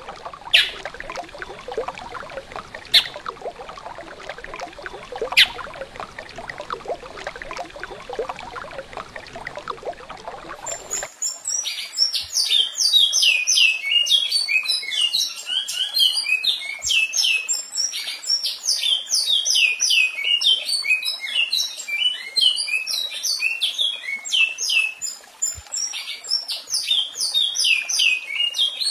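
Recorded songbird song. At first a steady water-like rush with a few single sharp chirps, then about eleven seconds in a bird starts a long continuous song of rapid, high, falling whistled notes.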